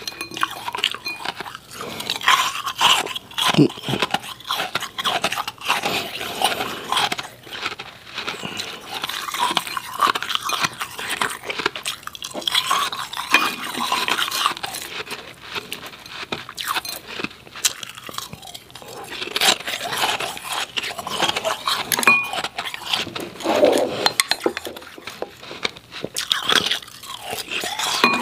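Powdery refrozen ice being crunched and chewed, a steady run of irregular crisp crackles and crunches.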